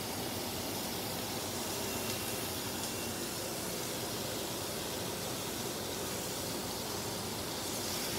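Steak and butter sizzling in a hot nonstick frying pan, a steady hiss, with the range hood exhaust fan running underneath.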